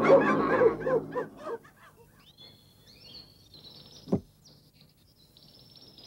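Cartoon chimpanzee chattering in a quick run of rising-and-falling hoots over a steady low hum, fading out in the first second and a half. Faint bird chirps follow, with a single short sound about four seconds in.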